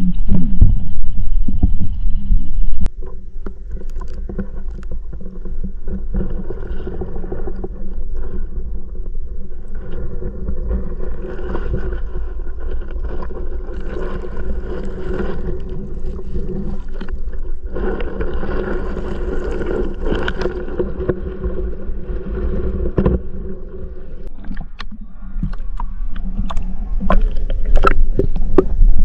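Muffled underwater sound picked up by a GoPro submerged in a pond: a low rumble of water noise, loud for the first few seconds, then quieter with a steady hum of several tones, and scattered clicks near the end.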